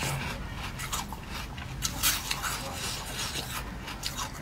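Close-miked mouth sounds of biting and sucking at a thin, rubbery translucent sheet held to the lips: a scattered string of small crackles and clicks.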